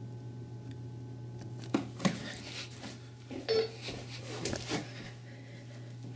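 A few sharp clicks and knocks over a steady low electrical hum, the loudest two close together about two seconds in, with a short beep among them about halfway through.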